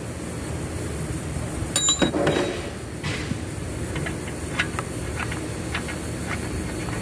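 Metal-on-metal clinks and scrapes of a slotted 22 mm socket working an oxygen sensor loose from the exhaust. There is a sharp ringing clink about two seconds in, then scattered lighter clicks over a steady low hum.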